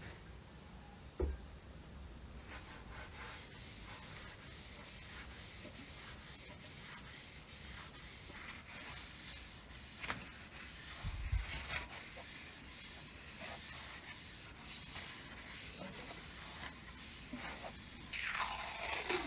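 Steady back-and-forth hand-sanding strokes on a part of an old rusty car air pump, about two strokes a second, with a couple of low knocks and a louder sweeping stroke near the end.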